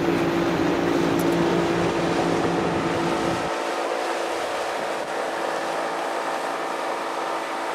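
Fishing boat's motor running with a steady hum; about three and a half seconds in its low rumble drops away, leaving a lighter steady drone.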